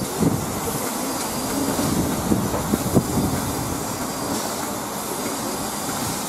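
LMS Stanier Black Five 4-6-0 steam locomotive standing at a platform, giving a steady hiss and rumble, with a few short sharp knocks two to three seconds in.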